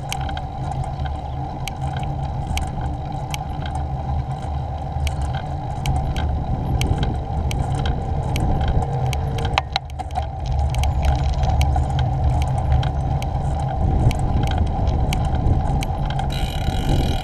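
Bicycle riding over a rough, patched lane, heard through a GoPro: steady wind buffeting and tyre rumble, with frequent small clicks and rattles from the bike.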